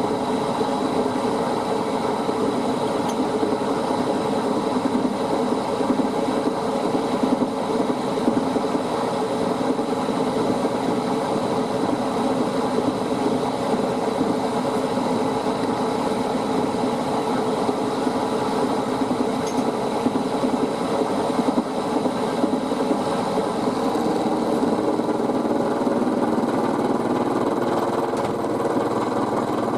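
Milling machine running steadily while machining, with a thin, steady high whine over an even drone from its drive.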